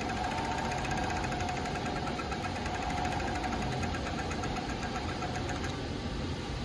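A JUKI MF-7923 three-needle industrial coverstitch sewing machine running at speed, stitching fabric with a fast, even mechanical rattle. It stops about a second before the end. This is a test seam after rethreading to cure skipped stitches and thread breaks.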